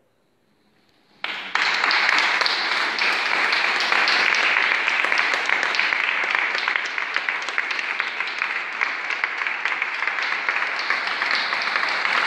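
A brief hush, then a small audience starts applauding about a second in and keeps clapping steadily at the end of a solo classical guitar performance.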